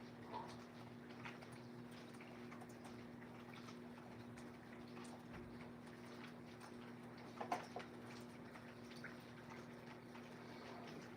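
Faint water dripping: scattered soft drops and ticks over a steady low hum, with one louder tick about seven and a half seconds in.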